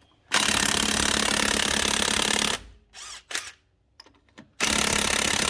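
Impact wrench hammering on a wheel's lug nuts in two runs of about two seconds, with a short pause between. The nuts may be left-hand threaded, stamped L.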